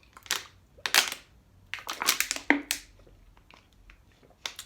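A run of short, noisy mouth sounds from someone eating very spicy instant ramen: slurps and sharp hissing breaths. There is one near the start, another about a second in, a quick cluster in the middle, and a brief one near the end.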